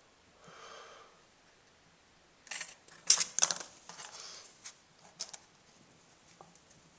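A quick cluster of sharp clicks and taps from small objects being handled, the loudest about three seconds in, followed by quiet.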